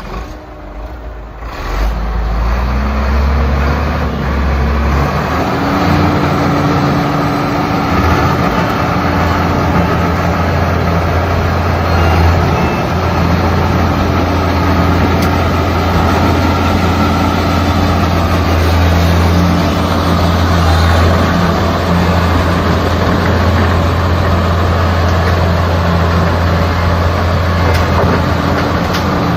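Diesel engine of an XCMG XS223J 22-ton road roller starting up in the first couple of seconds. It climbs in pitch over the next few seconds and then runs at a steady speed.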